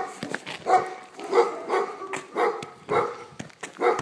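A dog barking over and over, roughly one to two barks a second.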